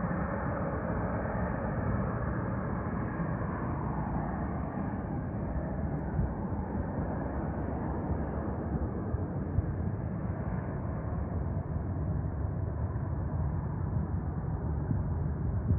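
Steady rumble of distant airplane engines at an airport. The sound is a little brighter in the first few seconds, then evens out.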